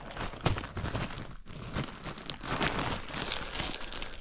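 Plastic bread bag crinkling and rustling in irregular crackles as it is handled.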